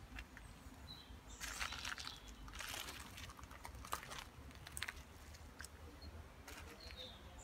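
Footsteps crunching on loose gravel: a few irregular steps, the loudest about one and a half to three seconds in, with sharper single crunches later.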